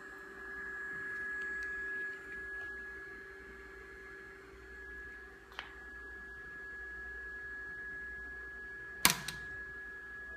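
Steady high-pitched electronic whine with a lower hum from running bench electronics: an X-Y recorder, an analog computer and an oscilloscope. A small click comes about halfway and a sharp click near the end.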